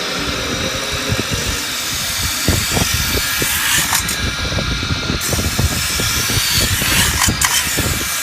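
CNC metal spinning lathe running, with a steady hiss over an uneven low rumble.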